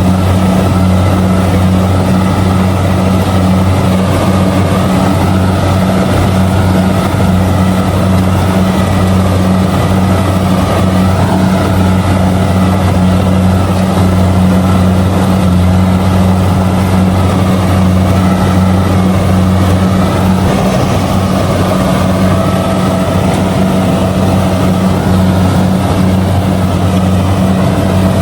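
Kubota DC70G combine harvester's diesel engine running steadily while the machine harvests rice, a constant loud drone with its threshing machinery humming underneath.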